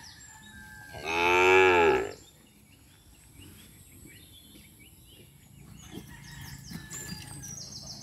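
A single loud moo from one of the cattle, lasting about a second, starting about a second in.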